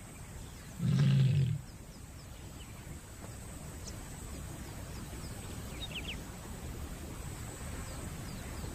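A lioness in heat calling for mates: one short, low roar-like call about a second in.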